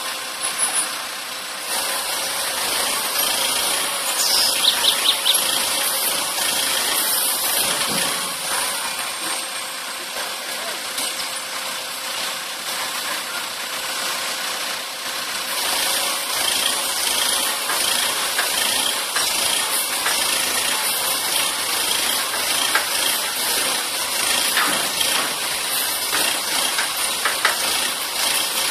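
Caterpillar 416E backhoe loader's diesel engine running steadily while its hydraulics work the backhoe arm and loader to lift the machine's front end, a continuous noisy drone with no break.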